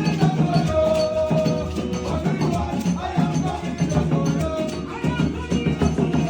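Gospel worship music with a sustained low bass line and a rattling shaker-like percussion keeping the rhythm.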